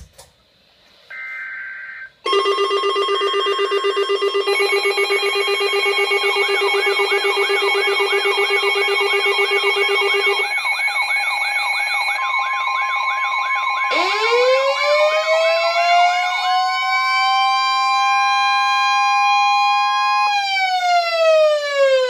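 Several NOAA weather radios sounding their alert alarms at once for an areal flood warning: layered steady and pulsing electronic beeps start about two seconds in, a steady alert tone joins partway through, and a siren-style alarm rises from about fourteen seconds, holds, and begins to fall near the end.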